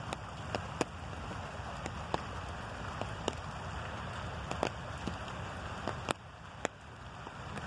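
Light rain on an open umbrella overhead: heavier drops tap on the canopy at irregular moments over a steady hiss of rain and running runoff water.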